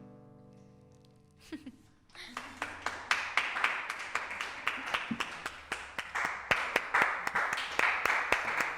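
The last acoustic guitar chord of a song rings out and fades away. About two seconds in, an audience starts clapping, and the applause grows and carries on.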